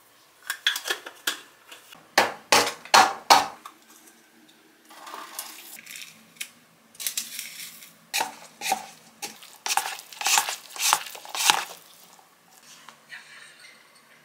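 Dishes and utensils being handled in a kitchen: runs of sharp clinks and knocks, the loudest a few strikes about two to three seconds in, then a softer rustle, then another run of clinks.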